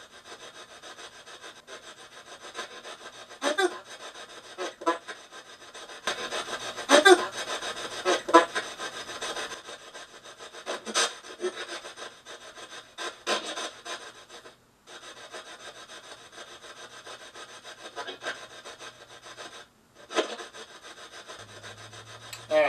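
Steady hiss and crackle of electronic static, broken every second or two by short voice-like fragments, and cut off completely twice for a moment, around the middle and again near the end.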